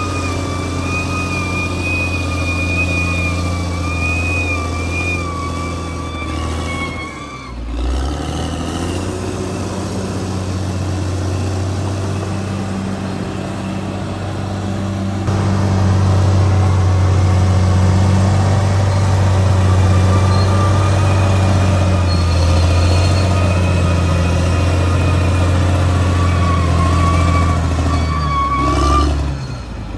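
Caterpillar D6R XL bulldozer's diesel engine running steadily under work, with a high steady whine over it at times. The sound breaks off briefly about seven seconds in and again near the end.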